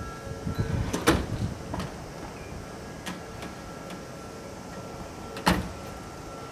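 Two sharp clicks, one about a second in and another about a second before the end, with a few fainter ticks between, over a faint steady hum.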